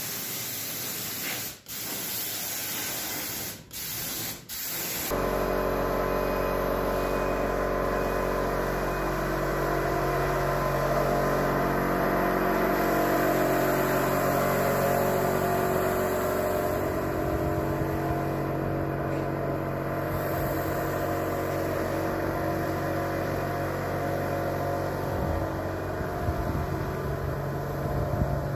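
A spray gun hissing in a few bursts with short breaks for the first five seconds or so. Then it cuts suddenly to a steady mechanical hum and drone, louder than the spraying.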